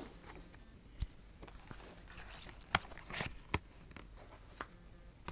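Scattered clicks and light knocks from a DVD box set being handled and opened, about five in all.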